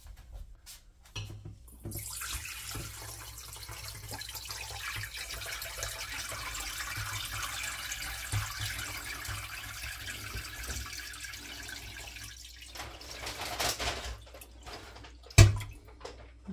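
Lamb broth poured from a stainless steel pot through a metal mesh strainer into another pot, a steady splashing stream that starts about two seconds in and eases off about twelve seconds in. Near the end there is a single loud knock.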